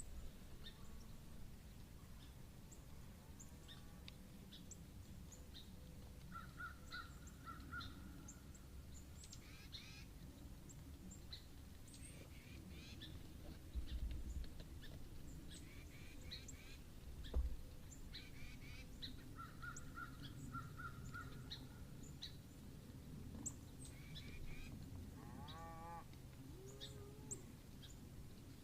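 Woodland birds calling: scattered short high chirps and a few quick runs of repeated notes, with a lower call of several stacked pitches near the end, over a steady low rumble. Two dull low thumps come about halfway through.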